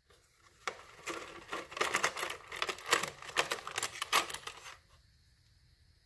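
Small metal bolts and parts clicking and clinking against each other as they are handled, a quick irregular run of rattles that starts about a second in and stops near five seconds.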